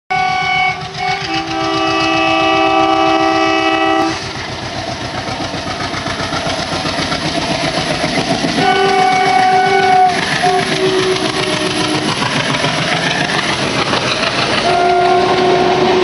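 ALCO-design WDM-3D diesel locomotive running through with its multi-tone horn sounding: a long blast of about four seconds, another blast and a shorter one around the middle, and another from near the end. Underneath runs the rhythmic chugging of its diesel engine, with the coaches rattling over the rail joints as they pass.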